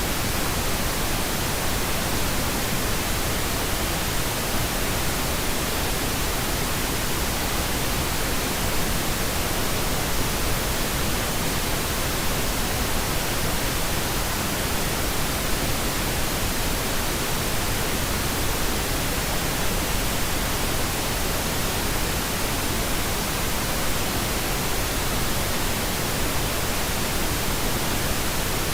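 Steady white noise: an even, unchanging hiss spread evenly from low to high pitches, with no rhythm or breaks.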